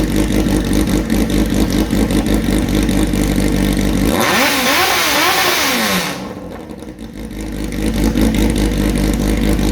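Built Honda CBR1100XX Blackbird inline-four engine running, its revs rising and falling quickly several times about four seconds in, then dropping quieter for a moment before running steady again.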